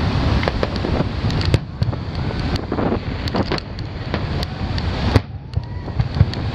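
Aerial fireworks shells bursting one after another in a dense run of booms and crackles, with one sharp, loud bang about five seconds in, over a steady low rumble.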